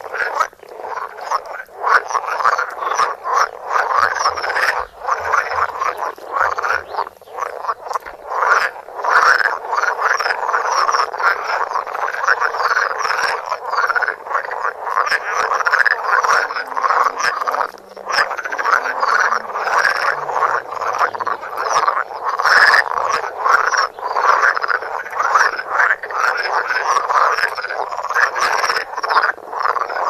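A dense chorus of many frogs croaking close up, their rapid pulsed calls overlapping without a break.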